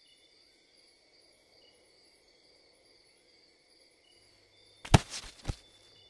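Faint steady night-time cricket chirring, then about five seconds in a sharp heavy thud and a lighter second thud half a second later: a child landing on the ground after jumping down from a wall.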